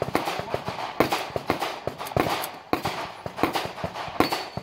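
Irregular pistol gunfire from other shooters on the range, two or three sharp reports a second, some louder than others.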